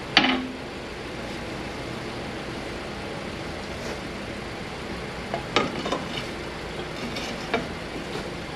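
Metal tools clanking on a car's front suspension: one sharp metallic clank with a short ring just after the start, then a few lighter knocks and taps from about five and a half to seven and a half seconds in, over a steady hiss.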